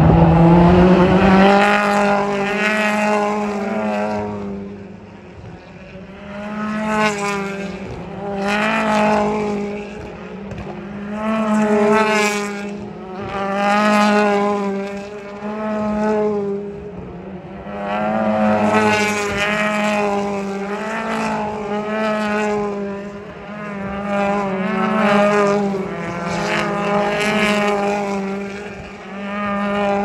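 British Touring Car Championship race cars, turbocharged 2-litre four-cylinders, coming through a chicane one after another, about one every two seconds. Each engine note rises as the car accelerates away.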